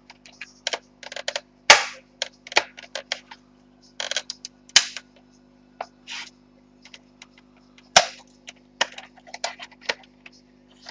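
Cougar Puri TKL keyboard's plastic case being pried apart with a sharp tool: a string of sharp clicks and snaps as the case clips let go, with short scrapes of the tool between them. The loudest snaps come about 2 s and 8 s in.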